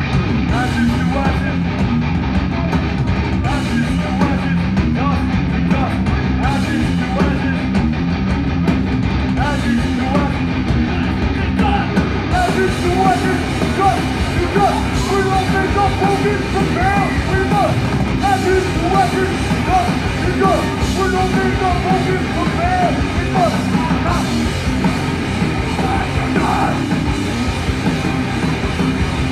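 A live heavy rock band playing without vocals: distorted guitars and bass over a drum kit, loud and steady, with a high, wavering melody line through the middle stretch.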